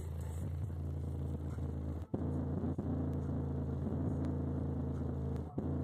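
Bass-heavy music played loud through two Boston SPG555-4 subwoofers on 2400 watts: deep, sustained low notes with two very short drop-outs, about two seconds in and near the end.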